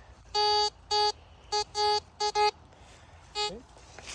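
Metal detector beeping: a steady mid-pitched tone in short pulses of uneven length as the coil sweeps over a target. The target is an Advil pack that the owner thinks must have metal in it.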